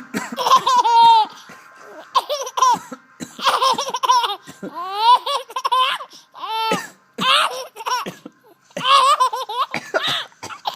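Baby laughing in about seven high-pitched bursts with short breaths between them.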